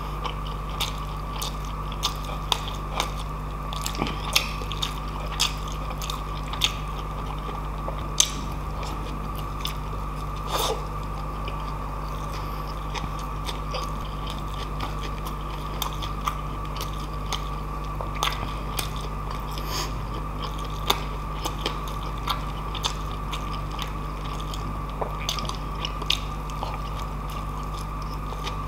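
Close-miked chewing of mouthfuls of pork dinakdakan and rice eaten by hand, with frequent short wet mouth clicks and crunches, over a steady background hum.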